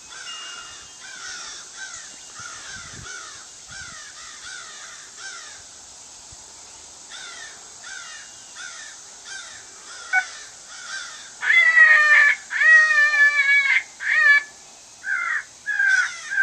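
Crows cawing in a rapid, overlapping squabble, fairly faint for about ten seconds, then much louder, harsh caws in the last few seconds.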